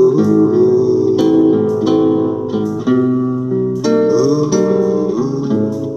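Guitar playing an instrumental passage of a ballad, a plucked melody over chords with a few sliding notes.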